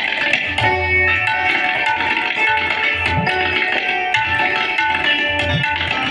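Santoor playing raag Charukeshi with tabla accompaniment: quick runs of hammered notes ringing on over steady tabla strokes. The deep bass drum of the tabla bends upward in pitch twice.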